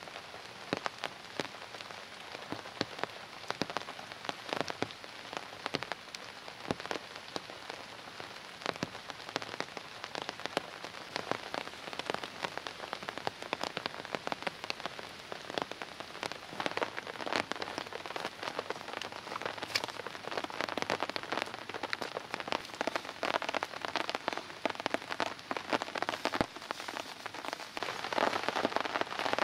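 Steady rain falling, with many separate drops tapping close by. It gets louder near the end.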